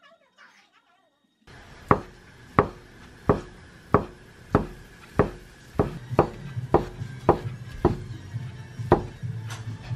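Kitchen knife slicing folded egg crepe into thin strips on a wooden cutting board: even knocks of the blade on the board, starting about a second and a half in at about one and a half strokes a second and quickening a little midway.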